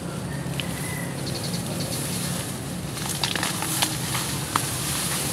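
Tall grass rustling, with a few sharp crackles and snaps about three to four and a half seconds in, as a person pushes through and crouches in it, over a steady low hum.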